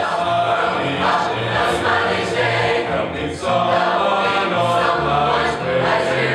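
Large mixed choir of men and women singing a gospel song in full harmony, with low notes moving in steady steps underneath.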